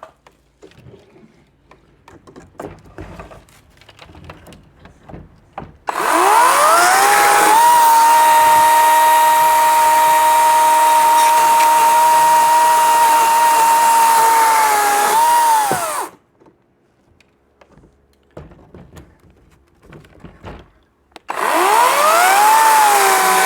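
Chainsaw of a home-made drop-saw frame starting up with a rising whine, running at a steady high pitch for about ten seconds, then winding down. After a few quiet seconds with light knocks, it starts up again near the end.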